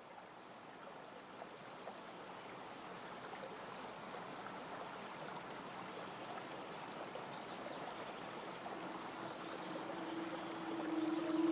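Creek water running over rock ledges and small cascades, a steady rushing that slowly grows louder. Near the end a held low musical note comes in under it.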